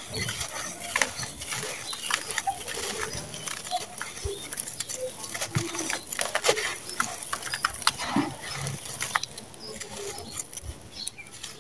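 A hand squeezing and crumbling dry red sand-cement chunks into a bowl, with dense, irregular gritty crunches and crackles as the grains fall. Short animal calls sound faintly in the background.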